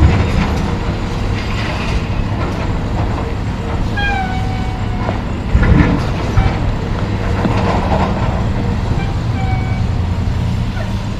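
A John Deere excavator loads crushed rock into a Western Star 4900 dump truck, over the steady running of the diesel engines. Rock crashes into the steel box about five and a half seconds in. A short, high metallic squeal comes about four seconds in.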